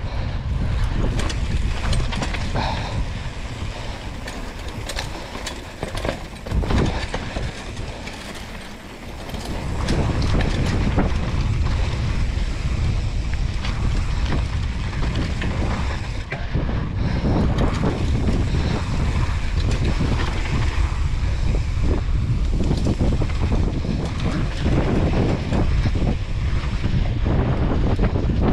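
Wind buffeting the camera microphone of a mountain bike riding fast downhill, a steady low rumble, with frequent clatter and knocks from the tyres and bike over rough trail. It eases for a couple of seconds about a third of the way in, then builds back up.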